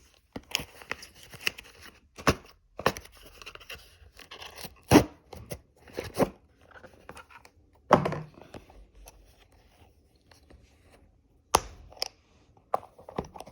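A tightly fitted kit being worked loose from its packaging by hand: irregular sharp clicks and knocks with scraping and rustling between them, the loudest knocks about five and eight seconds in.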